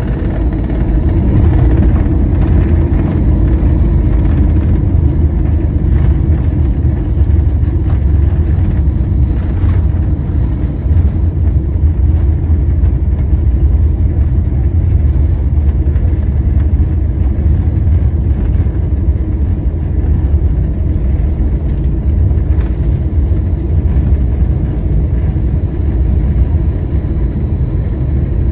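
Airliner cabin noise as the plane rolls along the runway after landing: a loud, steady low rumble of the engines and the wheels on the runway, heard from inside the cabin.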